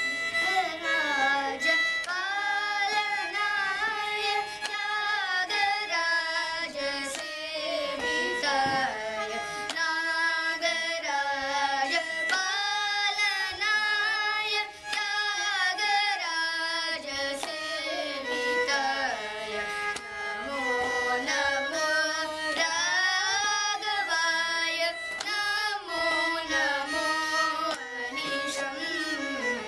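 Children singing a Carnatic song together, with a violin following the vocal line and light percussion keeping time.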